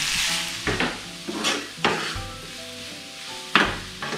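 Chopped onions and green chillies sizzling in oil in a frying pan, stirred with a wooden spoon that scrapes across the pan in a few short strokes.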